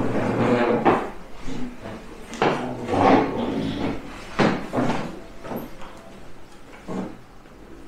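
Chairs being pulled out and shifted on a wooden floor as several people sit down at a table. It comes as a series of irregular scrapes and knocks about a second apart.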